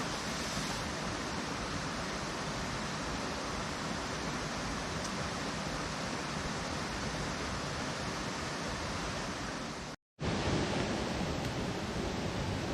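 Steady rushing of a mountain stream, with a split-second dropout about ten seconds in.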